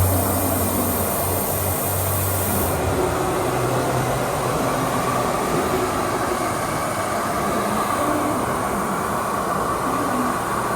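Steady mechanical running noise of industrial machinery, with a low hum that stops about three seconds in.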